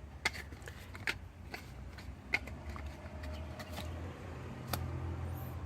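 Watch box packaging being handled and pried open: scattered clicks, taps and light scrapes, a few sharper ones, over a low steady hum.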